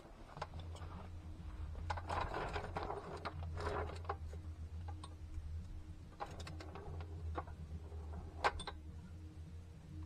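Light clinks, clicks and rustling as metal brake parts are handled at a truck's bare front wheel hub, with one sharp click near the end, over a steady low hum.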